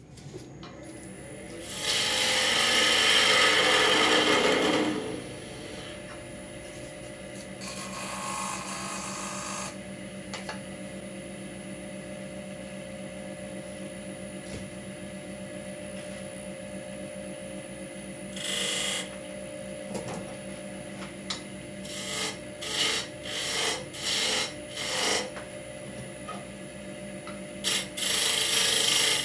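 Wood lathe running with a steady motor hum while a hand-held turning tool cuts the spinning wooden workpiece. There is a long loud cut in the first few seconds, a shorter one a few seconds later, a string of brief cuts in the second half, and a loud cut starting near the end.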